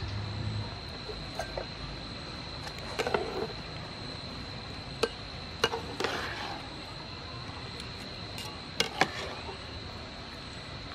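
Metal ladle and wire strainer clinking and scraping against a pan of boiling water as boiled duck eggs and ovaries are stirred and scooped out; a scattering of sharp clinks, two close together near the end, over a steady high thin tone.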